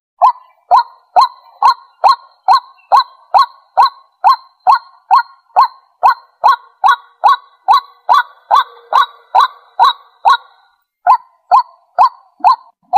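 White-breasted waterhen calling: a loud, rapid series of short repeated calls, about two to three a second, with a brief break near the end before the series resumes. This is the bird's territorial call.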